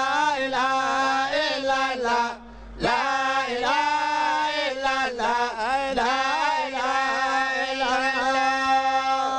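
A man chanting an Islamic religious phrase solo, with long, drawn-out, ornamented notes. Two phrases, with a short break about two and a half seconds in.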